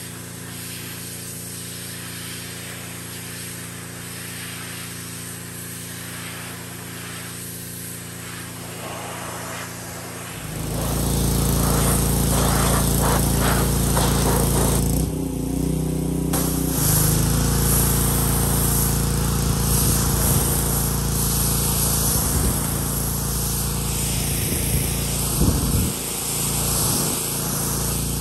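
Pressure washer running steadily; about ten seconds in it gets much louder as the high-pressure water jet blasts a dirty surface, a harsh hiss over the machine's hum, with one short break in the spray partway through.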